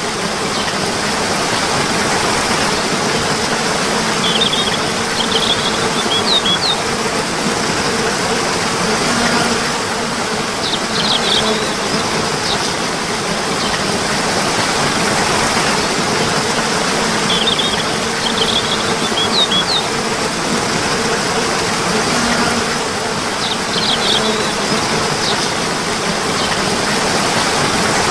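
Steady rushing water, like a stream, with brief clusters of high bird chirps that come in about every six seconds.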